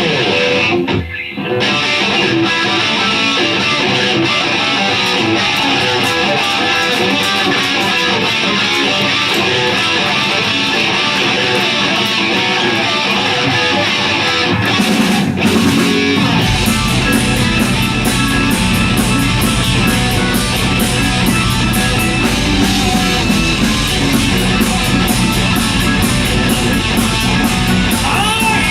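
Live hard rock band playing, led by electric guitar. Bass and drums come in fully about halfway through.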